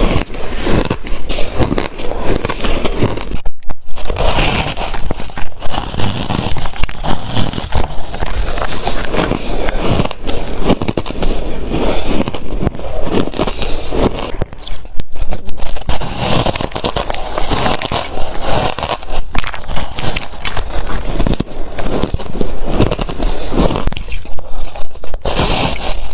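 Shaved ice being bitten and crunched close to the microphone: a dense run of crackling crunches with irregular loud peaks and a few brief gaps.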